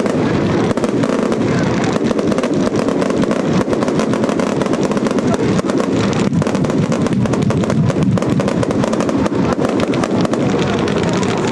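Daytime fireworks going off in a dense, unbroken barrage of rapid bangs and crackles.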